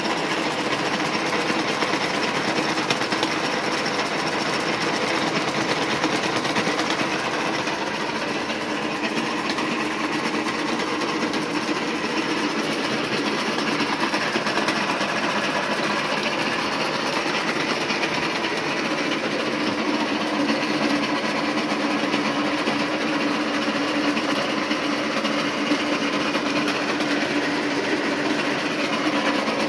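Vertical milling head of an Irkutsk-built 676P milling machine running steadily while its end mill cuts steel, with distinct separate knocks coming from the head: the owner suspects worn gears inside it.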